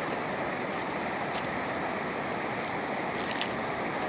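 Floodwater rushing over a washed-out road: a steady, even rush of water, with a few faint clicks about three seconds in.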